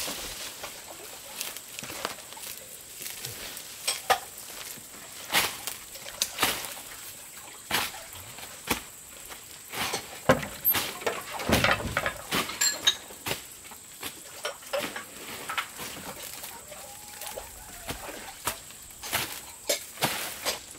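Grass and weeds being pulled up by hand: irregular rustling with sharp snapping crackles, busiest about halfway through.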